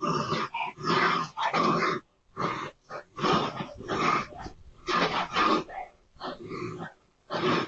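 A dog and a raccoon fighting: repeated animal cries and snarls in bursts of under a second, with brief pauses between them.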